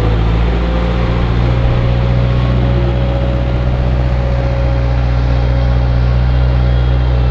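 Heavy diesel engine of maize-harvesting farm machinery running steadily under load, a loud, even deep drone with a faint steady whine above it.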